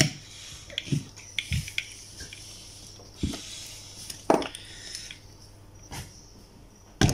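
Handling noise from a small 12 V air compressor's plastic housing and metal parts being turned over and worked on by gloved hands: about seven separate clicks and knocks, with some rustling in between.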